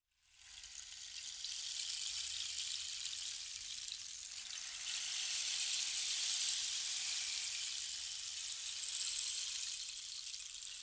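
A steady high-pitched hiss fades in over the first second or two and holds, swelling slightly around the middle.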